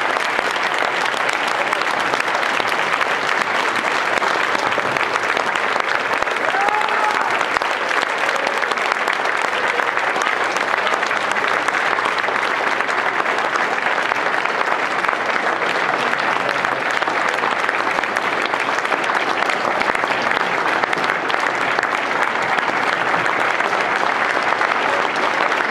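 A large crowd applauding steadily in a long ovation, with a faint call or two above the clapping.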